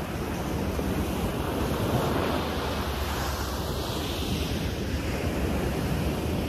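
Ocean surf breaking and washing up on a sandy beach in a steady wash of noise, with wind rumbling on the microphone.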